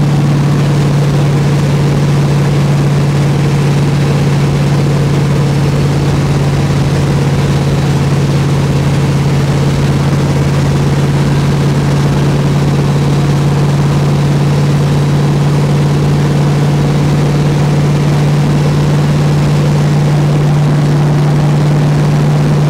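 Cab interior of a turbocharged Diamond T rat-rod truck cruising at steady highway speed: the engine drones at one constant pitch, under a steady rush of road and wind noise.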